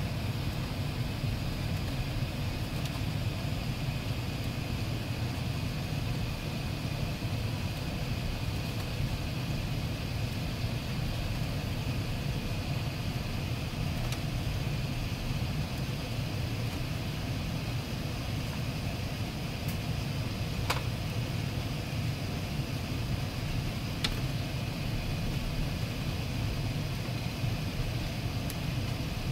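Steady low rumble inside the cabin of an Airbus A380 on takeoff: engine and airflow noise, with a faint high steady tone above it. Two faint clicks come in the second half.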